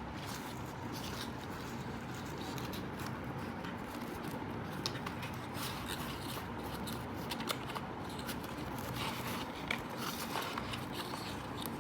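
Charger packaging being handled and opened by hand: scattered small clicks, crackles and scrapes of cardboard and paper.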